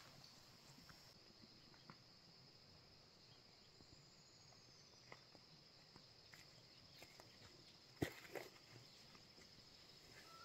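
Faint, steady high-pitched trilling of insects such as crickets, with a few soft clicks and rustles; the loudest is a pair of sharp clicks about eight seconds in.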